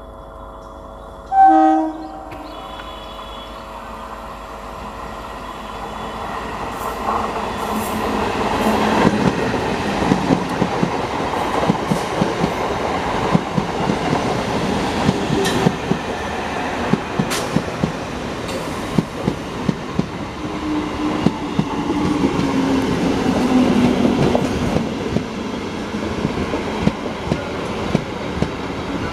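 Electric multiple-unit local train gives a short horn blast about a second and a half in. It then comes up and runs past close by, a rising rumble of wheels with sharp clicks over the rail joints. A low whine falls in pitch about two-thirds of the way through.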